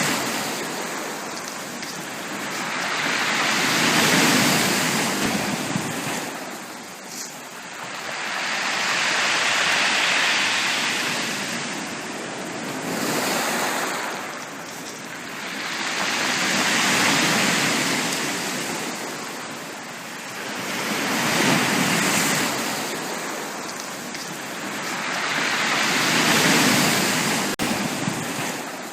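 Sea waves breaking and washing up a beach. The surf swells and dies away in slow surges, about one every five seconds or so.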